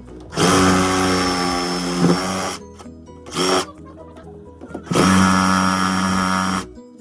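Handheld power tool run in three bursts: about two seconds, a short blip, then about a second and a half, its motor holding a steady pitch while it runs.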